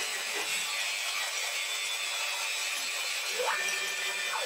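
WM210V variable-speed mini lathe running steadily with its spindle at about 620 rpm. About three and a half seconds in, a whine rises in pitch, holds, then falls near the end as the lead-screw motor, under the electronic lead screw controller, drives the carriage and stops.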